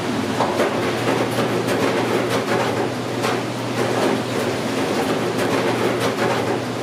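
Commercial kitchen running noise: a steady low machine hum with irregular light clicks and clatter.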